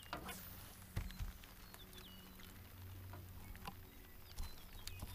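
Scattered light knocks and clicks from handling a freshly caught bluegill in a boat, over faint rain patter and a low steady hum, with a few short high chirps.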